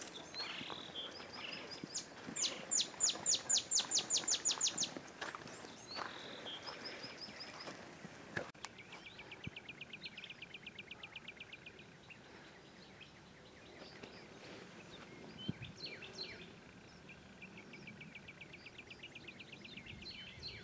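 Wild songbirds singing: a loud run of quick, high, down-slurred notes, about five a second, from about two to five seconds in, then fast, thin trills of chirps later on.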